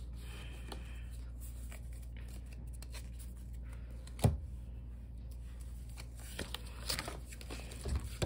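Pokémon trading cards handled on a tabletop: soft sliding and clicking as cards are set down and gathered up, with one sharper tap about four seconds in and a few lighter ones near the end.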